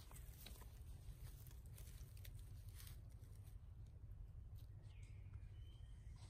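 Near silence: soft, scattered rustles of grass and dry leaves as a macaque picks at the ground with its hands, over a steady low rumble. There is a faint high chirp about five seconds in.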